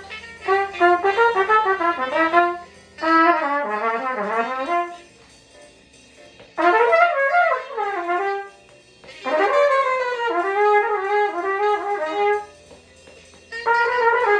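A solo jazz horn playing quick, winding bebop-style phrases: five phrases of two to three seconds each, with short pauses between them.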